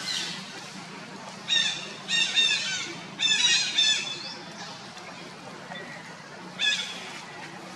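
Infant macaque giving high, squeaky calls in short runs of falling notes. There are three runs close together starting about a second and a half in, and one more near the end.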